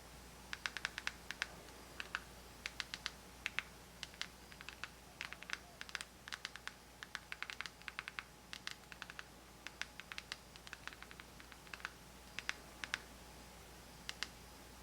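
Plastic buttons on a Fire TV Alexa voice remote clicking, pressed again and again in short irregular runs, a few presses a second: picking out letters one at a time on an on-screen keyboard.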